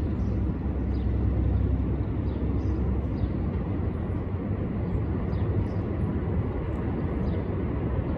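Steady low rumble of a New York City subway train approaching in an open cut, still some way off. Faint high chirps repeat every half second or so over the top.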